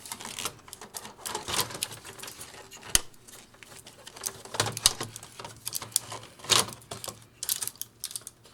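Irregular clicks and clacks of a mechanical keyboard being handled and fitted into a plastic Commodore 64C case.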